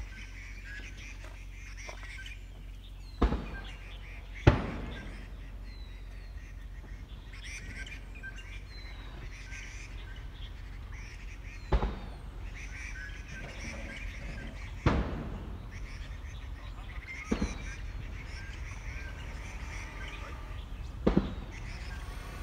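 Small birds chirping and singing over a low steady background, broken by six sharp thumps at uneven intervals, which are the loudest sounds.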